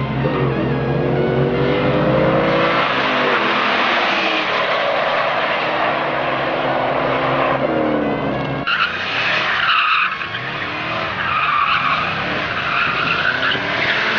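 A white Fox-body Ford Mustang and a black Pontiac Firebird launch side by side in a street drag race, their engines rising in pitch as they accelerate away at full throttle. Just under nine seconds in, the sound cuts to a car's tires squealing continuously as it slides around in a burnout.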